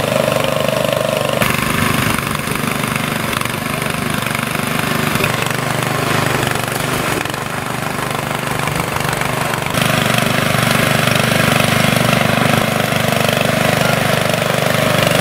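Engine running steadily at idle, from a tractor-drawn sanitizer tanker and its engine-driven spray pump. The sound shifts abruptly twice, about a second and a half in and about ten seconds in.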